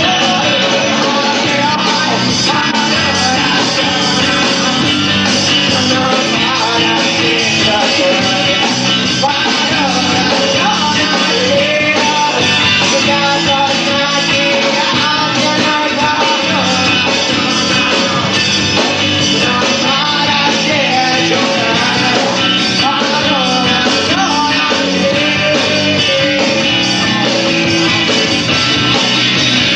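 Rock band playing live, with a singer over guitar and drums at a steady loudness.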